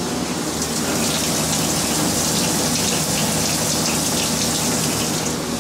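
Flood coolant from the nozzles of a Haas TM-1P CNC mill pouring and splashing onto the vise and workpiece, a steady watery hiss with a low machine hum underneath.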